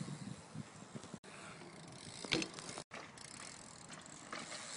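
BMX bike's sealed rear cassette hub ticking as the bike coasts, with a few sharp clicks; the sound drops out briefly a couple of times.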